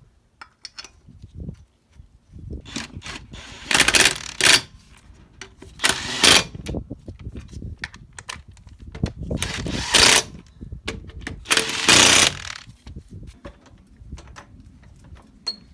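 Cordless impact wrench running the wheel bolts of a car's front road wheel in, in four short bursts that begin about four seconds in, with light clicks and knocks of the wheel and bolts being fitted before and between them.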